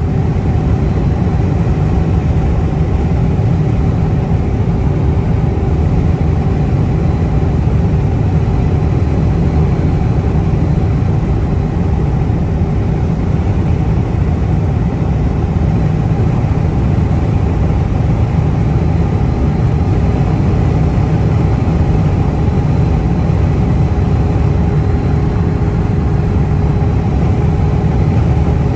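Hotshot truck running steadily on the road: a steady low engine and road rumble with a faint even hum above it.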